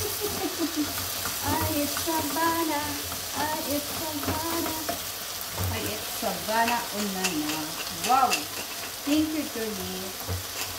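Food sizzling in a hot frying pan, stirred and turned with wooden utensils that scrape and click against the pan, with a few sharper clicks in the middle.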